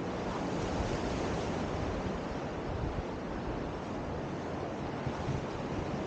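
Seawater washing against the rocks and pier, mixed with wind buffeting the microphone: a steady, even rush.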